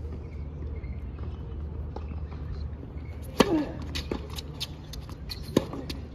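Tennis ball bounced a few times on a hard court before a serve, then a loud racket strike on the serve with a short grunt about a third of the way in. Fainter hits of the return follow, and another sharp racket hit comes near the end as the rally starts.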